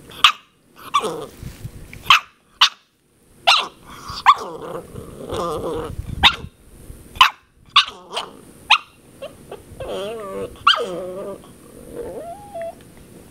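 Shar-pei puppy barking: about ten short, sharp yaps over the first nine seconds, then a few longer calls with a wavering pitch and a short rising call near the end.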